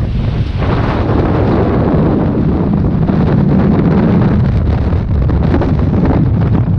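Strong sea wind buffeting the microphone in a continuous loud, low rumble, with surf washing onto the beach.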